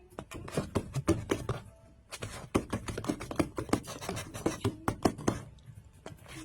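A cat and a person's hands scuffling in rough play: quick, irregular taps, scratches and thumps.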